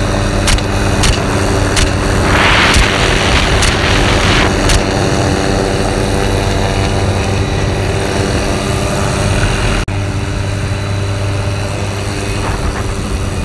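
Helicopter in flight heard from on board: a steady drone of engine and rotor. There are a few faint sharp clicks in the first five seconds and a brief rush of hiss a couple of seconds in.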